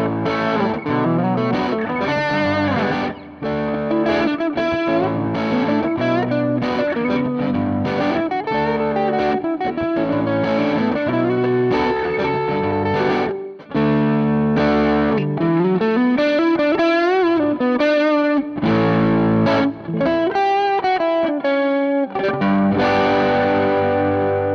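Electric guitar with a crunchy overdriven tone through a Zoom G1Four multi-effects processor: a looped chord part playing back from its looper, with single-note lead lines and string bends over it.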